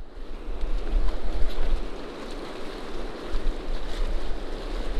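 Fast-flowing river water rushing steadily, with wind rumbling on the microphone.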